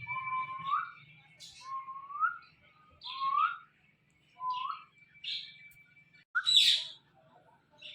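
Ringneck parrot whistling: a run of about five short rising whistles roughly a second apart, with chirps between them, then a louder harsh squawk about six and a half seconds in.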